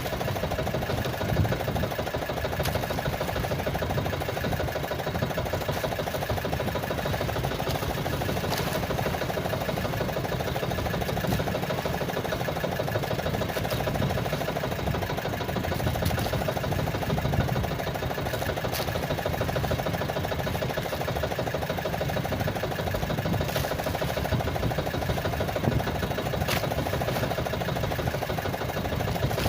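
A small engine running steadily at an even speed, with a few faint sharp ticks scattered through it.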